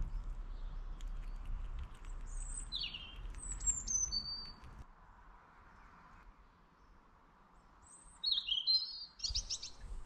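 Small songbirds giving short, high chirps and falling whistled notes in two short bouts several seconds apart. A low background rumble under the first half drops away about halfway through.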